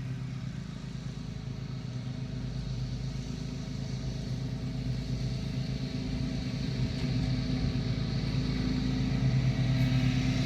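An engine running steadily with a low, droning hum that slowly grows louder.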